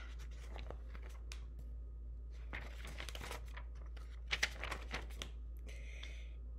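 Paper pages of a picture book rustling and crinkling as it is opened and its pages are turned, in scattered short strokes that are busiest a few seconds in, over a steady low hum.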